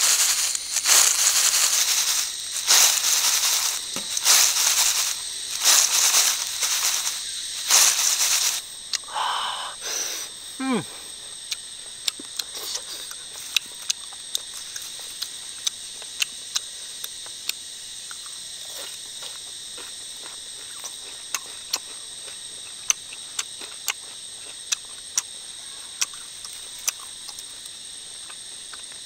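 Fried crickets with chilli and green herbs being tossed in a woven bamboo basket: a dry rustling rattle, about eight tosses roughly a second apart. Then it goes quieter, leaving a steady high insect drone with scattered light clicks.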